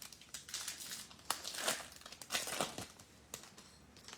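Foil wrapper of a football trading card pack crinkling as it is torn open, in a few irregular crackly bursts that die away after about three seconds.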